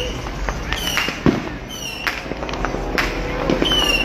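Fireworks going off: scattered sharp bangs and crackles, with short high whistles recurring about once a second.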